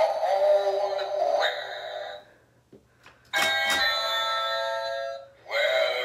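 Battery-powered Halloween novelty doorbells, a talking witch and a pumpkin, playing electronic sounds through a small speaker. A warbling tune plays for about two seconds. After a short pause with a single click, a steady electronic chime rings for about two seconds, and the warbling sound returns near the end.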